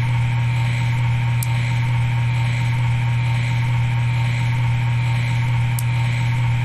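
Steady low hum with fainter higher tones above it, unchanging throughout, and two faint ticks, one about a second and a half in and one near the end.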